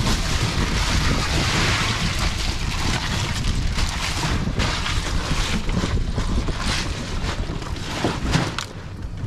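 Wind buffeting the microphone, with crunching, rattling ice and crinkling plastic as a bag of ice is broken up around a fish in an insulated fish bag.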